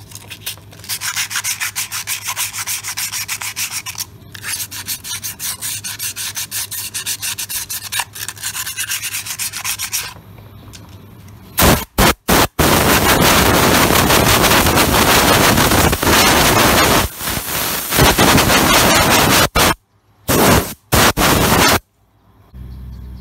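Sandpaper rubbed by hand around the inside of a motorcycle's brake drum in quick, rhythmic scrubbing strokes, taking soot deposits off the braking surface. About twelve seconds in, a much louder rushing noise takes over, cutting off and restarting abruptly several times.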